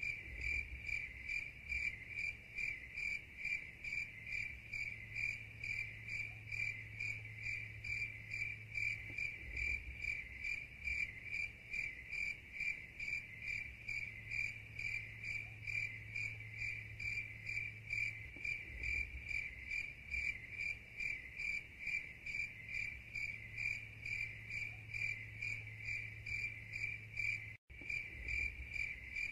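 Cricket chirping in a steady, even rhythm of a few high-pitched pulses a second. It breaks off for a moment near the end.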